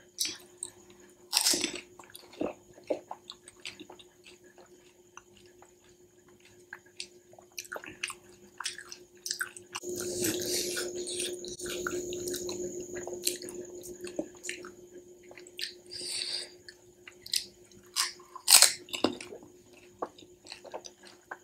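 Crisp fried pani puri shells being bitten and chewed close to the microphone: short crunches and wet squishing from the water-filled puris, with a few seconds of denser wet noise about halfway through.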